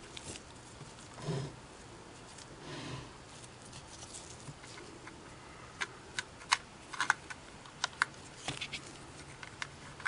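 Soft handling rustles, then a run of small sharp clicks and taps from about six seconds in, as the cam selector arm shaft and its bracket are worked into place inside a Singer 401A sewing machine.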